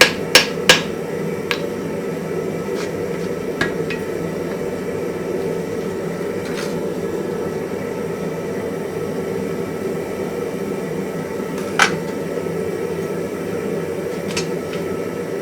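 Hand hammer striking hot iron twice at the very start, ending a rapid run of blows in forge welding. Then a steady low hum runs on, broken by a few scattered light metallic clinks, the clearest about twelve seconds in.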